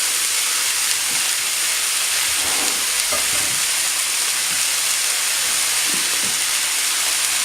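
Vegetables frying in a little oil in a pan with fish masala, a steady sizzle.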